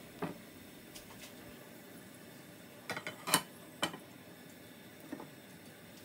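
A few light clicks and knocks of cookware on the hob, a cluster of them around three seconds in with the loudest just after, over a faint steady hum.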